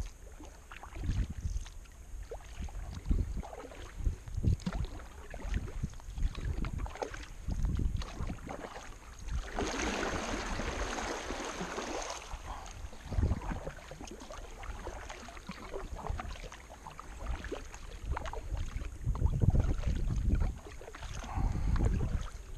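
Double-bladed kayak paddle stroking through flat river water, each blade dipping and splashing. There is a longer spell of splashing and pouring water from about ten to twelve seconds in. Wind buffets the microphone in gusts throughout.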